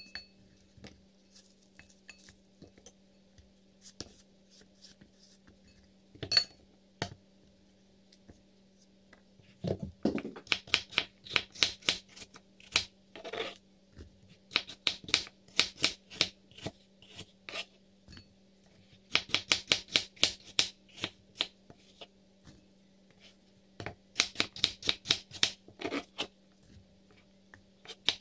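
Small kitchen knife slicing peeled apples on a plastic cutting board: sharp knocks of the blade on the board, a few scattered at first, then quick runs of several a second with pauses between. A faint steady hum underneath.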